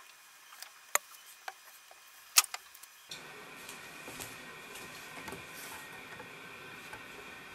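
Two sharp clicks, about a second and two and a half seconds in, with a few softer ticks around them: small objects handled by hand. Later there is a faint steady hiss with light rubbing and tapping.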